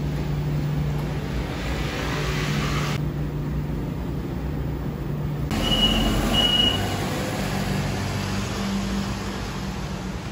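A coin-operated washing machine's steady hum in the first few seconds, then street traffic on a wet road with a minibus passing. Two short high beeps sound about six seconds in.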